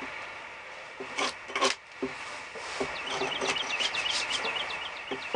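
Hatchet blade being worked under the bark of a wet white pine log, scraping and prying it off: two sharp knocks a little over a second in, then a run of quick rasping scrapes in the second half.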